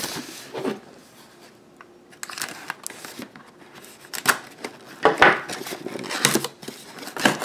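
Cardboard box being handled and opened by hand: rustling, scraping and a few sharp cardboard knocks, busier in the second half.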